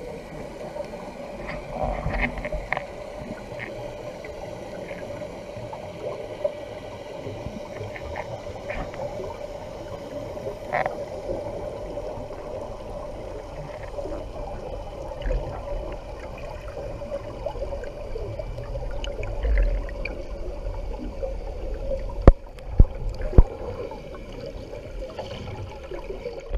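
Underwater sound picked up by a camera in a waterproof housing on a hand-held pole: muffled water noise with a steady hum and scattered faint clicks. Three sharp knocks come close together near the end.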